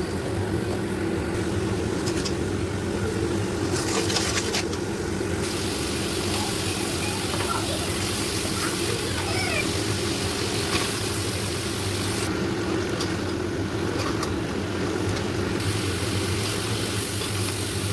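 A steady low mechanical hum with a hiss above it, unchanging throughout.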